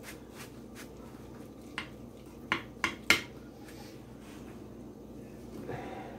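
Kitchen utensils clinking and knocking against a pan and dishes while food is served: several sharp clinks, the loudest three coming close together between about two and a half and three seconds in.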